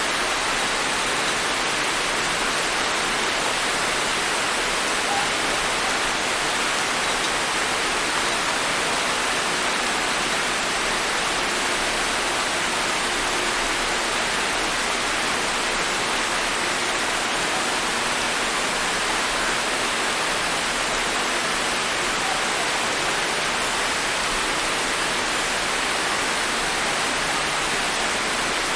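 Steady rain falling, an even hiss with no breaks or swells.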